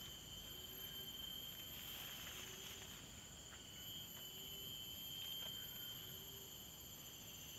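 Insects calling in a steady, high-pitched chorus at several pitches at once, with a faint low note repeating about every two seconds.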